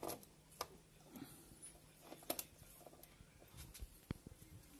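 Faint clicks and light metallic scrapes of a key being fitted and worked in a Honda CB Unicorn's seat lock: a few separate sharp ticks spread out, two close together about halfway through and another near the end.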